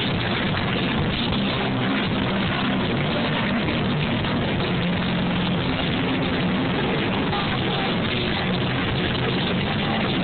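A hard rock band playing live at full volume, recorded through an overloaded camera-phone microphone so that guitars, bass and drums blur into one dense, distorted wash with a few held low bass notes showing through.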